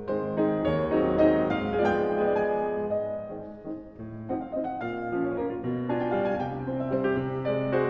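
Background piano music, many notes struck one after another and in chords.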